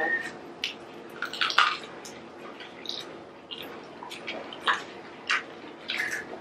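Garlic bread pizza being chewed with the mouth open: irregular wet smacks and chewing sounds, a few every second, over a faint steady hum.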